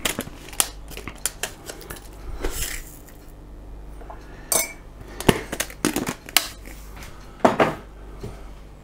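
Scattered clinks and knocks of kitchenware being handled, including a salt canister being opened by its plastic lid. There is a short rushing noise a few seconds in and a brief ringing clink about halfway.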